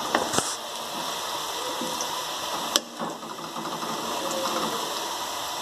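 Sliced onions frying in hot oil in a metal kadai, a steady sizzle, as they begin to turn golden brown. A spatula stirs them, with one sharp knock against the pan about three seconds in.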